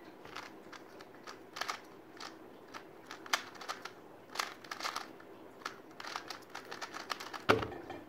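A 2×2 speed cube being turned fast by hand: quick plastic clicking and clacking turns in irregular flurries. Near the end comes one loud thud as the solved cube is put down and the hands slap the Speed Stacks timer pad to stop it.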